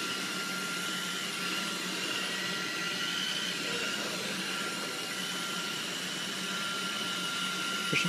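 Robot vacuum cleaner running: a steady hum with a faint high-pitched whine.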